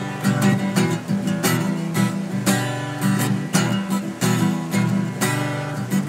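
Acoustic guitar strummed in a steady rhythm, full chords struck roughly twice a second and left ringing between strokes.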